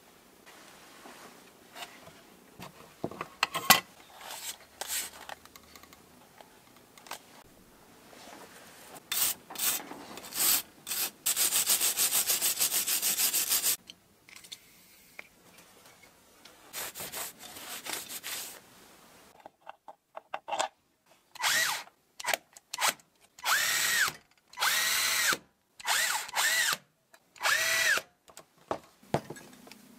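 Cordless screwdriver driving screws into a plastic tool housing: about six short runs, each motor whine rising as it starts and falling as it stops. Before that come clicks of plastic housing parts being handled and a continuous power-tool run of a few seconds.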